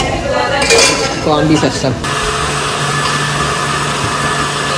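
An electric motor, such as a kitchen appliance's, switches on suddenly about two seconds in and runs with a steady hum, after a moment of voices.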